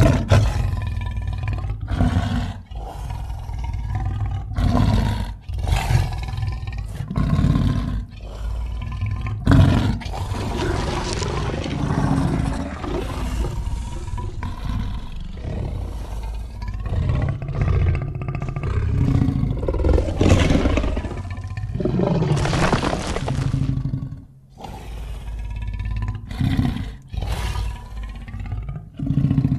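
Tiger growling, a film sound effect: a run of short, low growls every second or two, then a long unbroken stretch of growling, then short growls again near the end.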